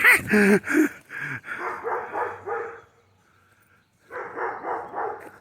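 Dog vocalizing: a few short high, wavering whines or yips in the first second, then two rougher, breathy stretches with a short pause between them.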